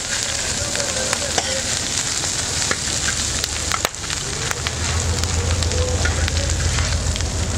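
Taco meat and whole onions sizzling on a round steel street-taco griddle, with metal spatulas clicking and scraping on the steel as the meat is chopped and turned. A low hum comes in about halfway through.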